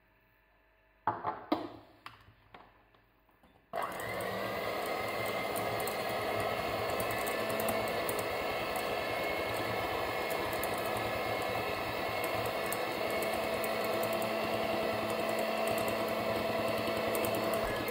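A few knocks and clinks, then about four seconds in a Moulinex electric hand mixer starts with a short rising whine and runs steadily, its beaters whisking eggs and sugar in a glass bowl.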